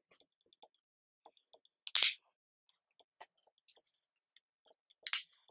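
Magnets snapping into their recesses in a 3D-printed plate: two sharp clicks, about two seconds in and near the end, with faint small ticks of handling between.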